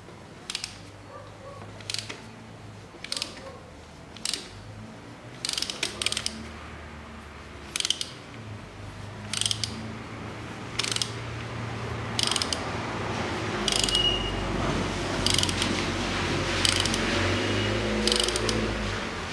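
Ratchet wrench on an extension and spark-plug socket unscrewing a spark plug, its pawl clicking in short bursts on each back-swing, roughly once every second and a half.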